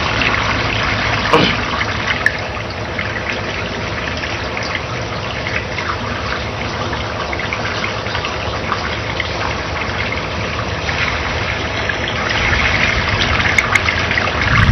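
Steady rush of running water, with no break in it.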